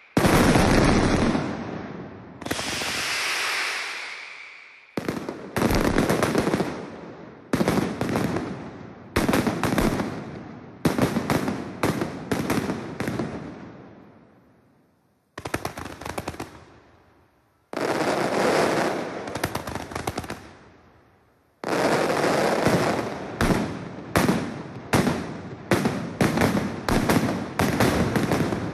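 Mascletà: ground-level firecrackers (masclets) going off in rapid volleys. Each string of sharp bangs trails off into a rumble, with short pauses between volleys. In the last quarter the bangs come faster and closer together, with no pauses.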